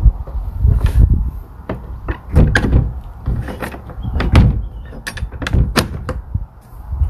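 A shed door being handled: a series of sharp clicks, knocks and rattles over low thumps of footsteps.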